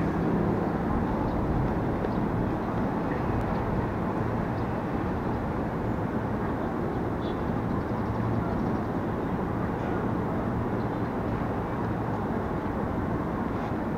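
Steady hum of a standing KRL Commuter Line electric train's rooftop air-conditioning and auxiliary equipment, running while the train waits at the platform with its doors open, with a few faint ticks over it.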